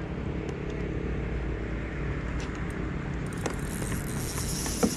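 Steady low engine rumble with a faint hum, with a few light clicks near the end.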